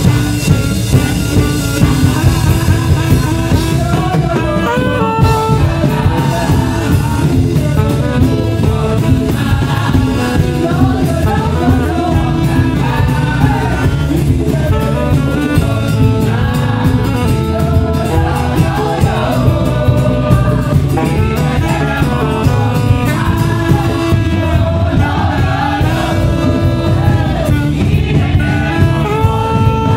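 Live band music: a saxophone plays a flowing melodic line over a steady drum kit beat and bass.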